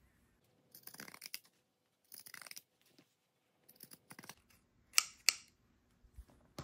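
Pinking shears cutting through a fabric seam in short runs of snips, then two sharp clicks about five seconds in.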